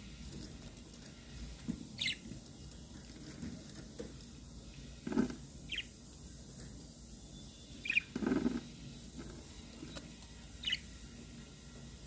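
Budgerigars giving short, high chirps and squeaks, about six of them scattered through, two with a louder rasping note about five and eight seconds in.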